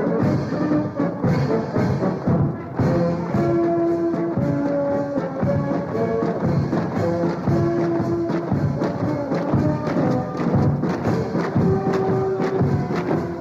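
Orchestral film score with brass and timpani over driving percussion, a steady pulse of drum hits under held melody notes.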